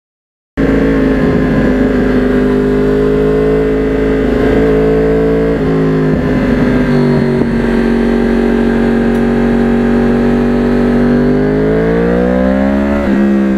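A 2009 Yamaha R1 crossplane inline-four with a custom carbon exhaust, running while the bike cruises at a steady speed. The engine pitch dips slightly about five and a half seconds in. Near the end it rises as the engine revs up, then falls suddenly.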